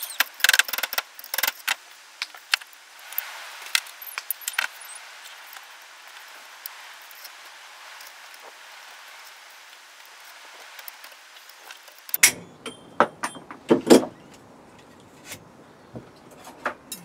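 Small metal parts and hand tools clinking and clattering as they are handled on a wooden workbench: a quick run of sharp clicks at first, a quieter stretch, then a few heavier knocks.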